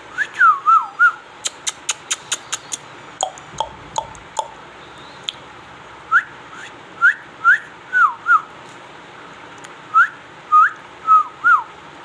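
Short phrases of clear whistled notes that glide up and down, with a quick run of sharp clicks about a second and a half in.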